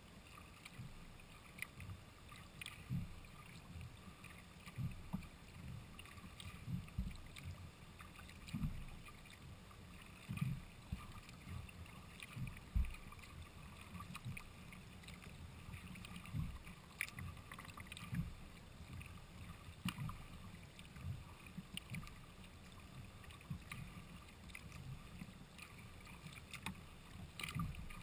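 Sea kayak moving across calm water: water lapping and splashing against the hull and paddle strokes, heard as faint, irregular soft knocks and splashes every second or so, through a camera mounted on the kayak's front deck.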